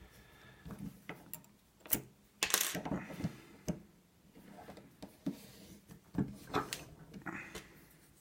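Lock pick and long tension wrench working the pins of a small pin tumbler lock: scattered light metallic clicks and scrapes, with a louder bout of handling noise about two and a half seconds in.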